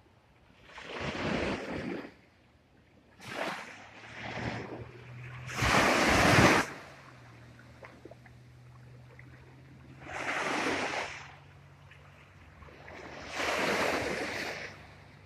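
Small waves breaking and washing up on a sandy shore, coming in separate swells every few seconds, the loudest about six seconds in.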